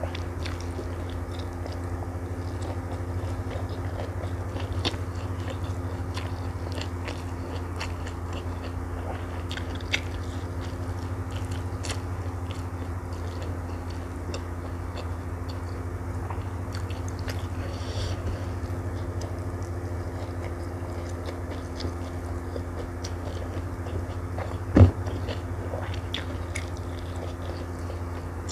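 Close-miked chewing and biting as a person eats stir-fried water spinach (kangkung) and rice by hand, with many small mouth clicks over a steady low hum. A sharper click stands out near the end.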